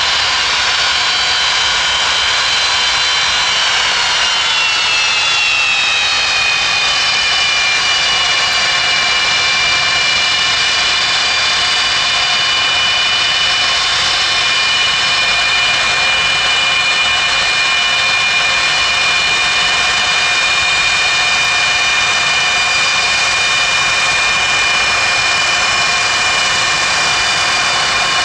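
Aircraft turbine engines running loud, with a high whine whose pitch falls about four to six seconds in and then holds steady over the engine roar: the engines throttling back toward a lower setting.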